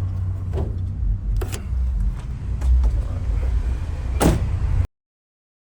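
Clicks and a louder clunk from a 1994 Chevrolet Caprice's hood release latch being pulled, over a low rumble. The sound cuts out suddenly near the end.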